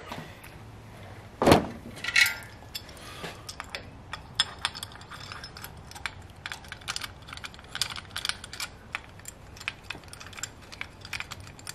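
Steel rocker arms clicking and clinking against the pushrods and the cylinder head of a 7.3 IDI diesel as they are set in place by hand. There is one louder knock with a brief metallic ring about one and a half seconds in, followed by a run of small, irregular clicks.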